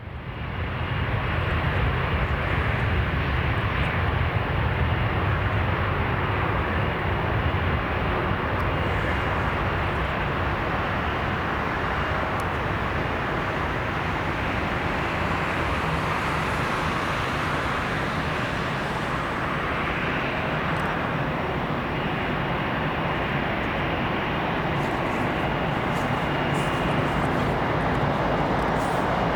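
Jet airliner engines heard at close range, a steady rumbling roar with a faint high whine running through it.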